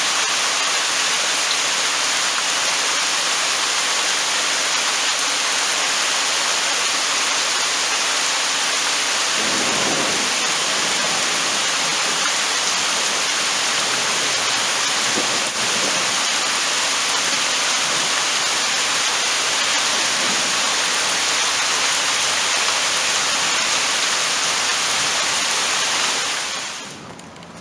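Heavy rain falling steadily, an even loud hiss, with low rumbles of thunder about ten seconds in and again around fifteen seconds. The rain sound cuts off shortly before the end.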